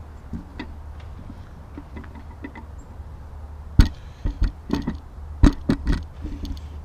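A quick run of sharp knocks and clicks, bunched over about two and a half seconds in the second half, over a steady low rumble.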